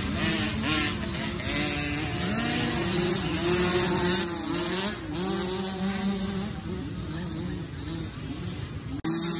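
Several dirt bike engines revving up and down as the bikes climb a motocross hill, their pitches rising and falling and overlapping. The sound jumps louder abruptly near the end.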